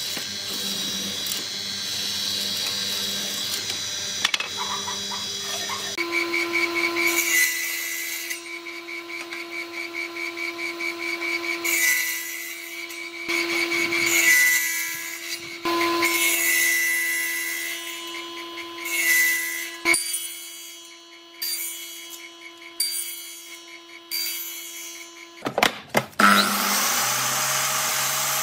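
Woodworking machines in turn: a benchtop mortising machine running and boring into hardwood, then from about six seconds in a circular saw on a combination woodworking machine running steadily with a series of cuts through the wood, and near the end a sliding miter saw starting up with a rising whine.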